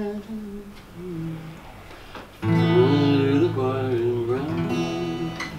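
Acoustic guitar being played: a few softer ringing notes, then louder sustained notes from about two and a half seconds in.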